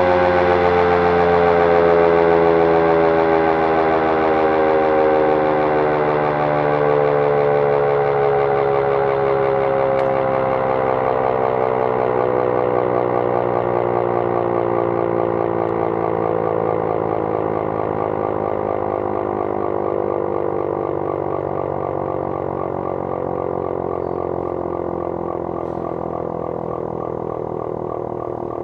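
Canadian CLM 10/12 air raid siren winding down: its stacked tones slide slowly and steadily lower in pitch as the sound gradually fades.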